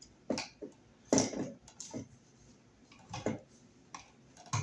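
Irregular clicks and knocks from wires and a wall thermostat being handled and pushed into a wall electrical box, about six in all, the loudest about a second in.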